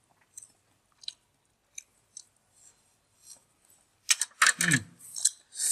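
A person chewing a mouthful of boiled pork intestine with lime: faint, scattered wet clicks and crunches, then louder smacking mouth noises from about four seconds in.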